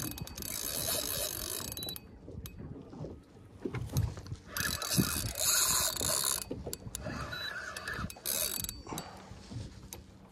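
Penn saltwater spinning reel being cranked in three bursts of a few seconds each, its gears whirring and ticking as line is wound in against a heavy fish. A few knocks and clicks fall between the bursts.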